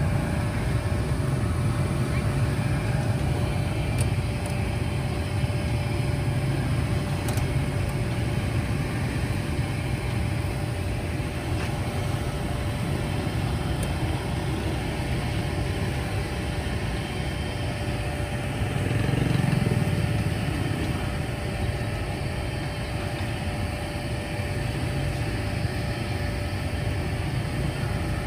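Busy street traffic, mostly motorbikes with some cars: a steady low rumble, with one vehicle passing louder and closer about two-thirds of the way through.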